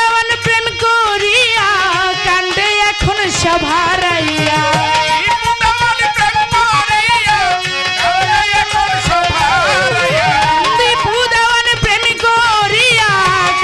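Bengali Baul folk song performed live and amplified: a young woman singing an ornamented melody over instrumental accompaniment with tabla-like hand-drum strokes.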